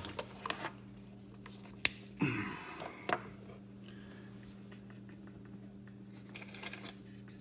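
Light clicks and taps of small steel Glock trigger parts being handled and set down on a bench mat, with a short scraping sound about two seconds in, over a faint steady low hum.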